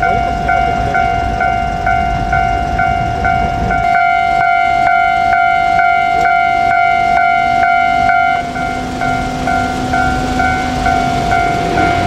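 Japanese railway level-crossing warning bell ringing in an even, steady rhythm of about two and a half strikes a second. A second, higher-pitched ringing joins from about four to eight seconds in, and a low hum and rumble from the slowly approaching electric train lie underneath.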